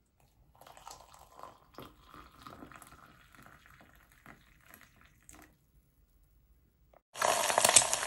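Hot water poured from an electric kettle into a ceramic mug, a soft trickling pour lasting about five seconds. Near the end, a loud sizzle of an egg frying in a pan starts abruptly.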